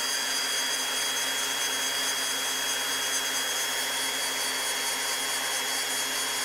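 Tork Craft 20V brushless cordless angle grinder running free at full speed, about 8,000 rpm. It makes a steady high whine with a rush of air from the spinning disc.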